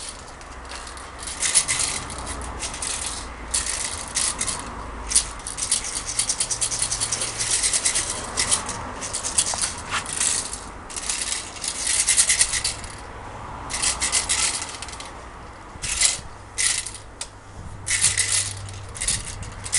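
Plastic BBs rattling inside a toy AK47 BB gun's magazine as it is shaken and tipped, in repeated bursts with short pauses. The shaking is an attempt to get BBs that are stuck and not coming out to move.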